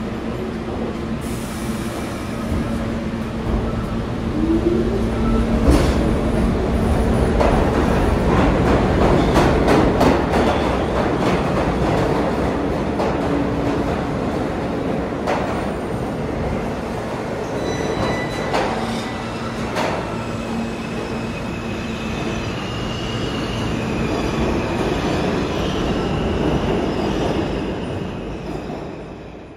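A Pullman Standard R46 subway train pulls out of the station and passes close by. It picks up speed with a run of sharp clicks from the wheels and a high wheel squeal in the second half. The sound fades away near the end.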